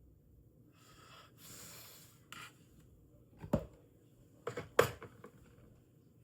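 A short hiss from an aerosol spray of CA glue accelerator, then a few sharp knocks and taps on the work surface, the loudest a cluster a little before the end.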